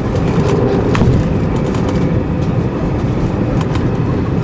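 Strong wind buffeting the microphone: a steady, loud low rumble that rises and falls in small gusts, with a faint steady hum underneath.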